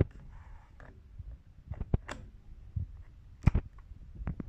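Hard plastic clicks and knocks of a DJI Spark flight battery being set into and seated in its charging hub: several sharp clicks, the loudest about three and a half seconds in.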